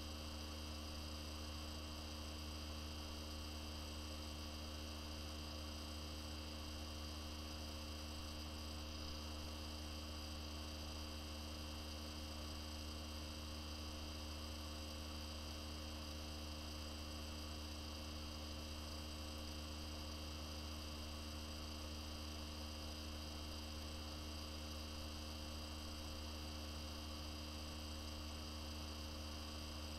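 Steady electrical hum, unchanging throughout, with a low drone and a few faint steady tones above it and nothing else.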